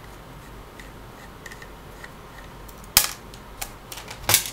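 Small clicks and taps from unscrewing and handling a laptop hard drive's metal caddy with a Phillips screwdriver: faint ticks at first, then a sharp click about three seconds in and a few more clicks near the end.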